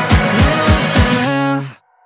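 Music with a steady beat of about four low thuds a second, which cuts off abruptly near the end.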